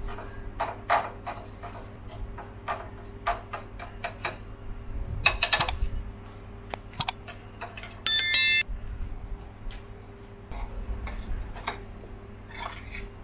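Wooden chopsticks clicking and scraping on a ceramic plate while stirring dry seasoned flour, with a quick run of clicks about five seconds in. About eight seconds in comes the loudest sound, a short bright electronic chime.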